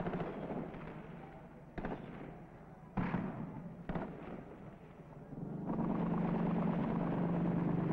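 Three separate gunshots, each a sharp crack with a short echo, spaced about a second apart over a rough background noise. Near the end a louder steady drone sets in.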